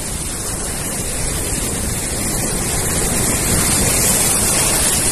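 Sea surf rushing onto the beach, with wind buffeting the microphone; the noise swells a little partway through.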